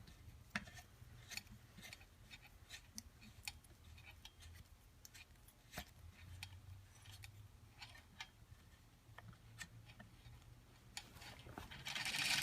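Faint, irregular small metallic clicks and taps as the right bicycle pedal is threaded clockwise into the crank arm by hand, with a louder scraping rustle near the end.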